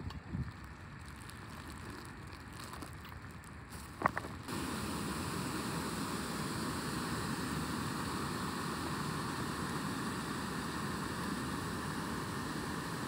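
A steady rush of running water spilling over rock, starting suddenly about four and a half seconds in after a sharp tap. Before it, faint outdoor quiet with a few light taps.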